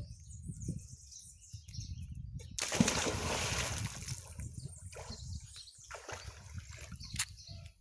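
A person jumping into an outdoor swimming pool: one loud splash about two and a half seconds in, then water sloshing and dying away over the next two seconds.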